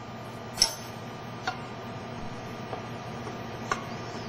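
A wooden spoon folding a thick mixture in a stainless steel mixing bowl, with three light clicks as it knocks the bowl, over a steady background hum.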